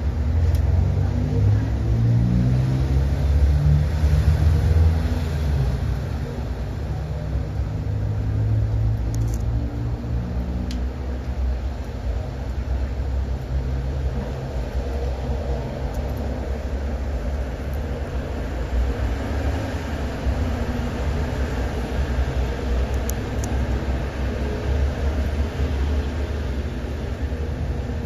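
Low engine rumble, with a hum that wavers in pitch during the first ten seconds and then settles into a steady low drone.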